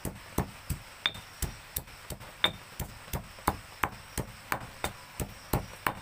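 Stone pestle pounding spice ingredients, galangal among them, in a stone mortar: steady thuds about three a second, a few with a short clink of stone on stone.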